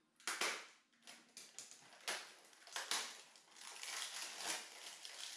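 Packaging rustled and pulled open by hand, in a string of irregular crackles with the loudest about half a second in, as a pair of BMX pedals is unwrapped.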